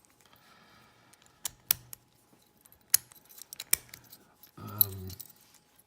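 Small metal clicks and clinks from a wafer cabinet lock and lock-picking tools being handled, a handful of sharp separate ticks spread irregularly over a few seconds.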